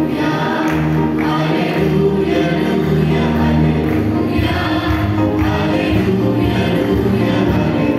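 A mixed youth choir singing a Telugu Christian worship song together into microphones, over instrumental backing with steady low bass notes.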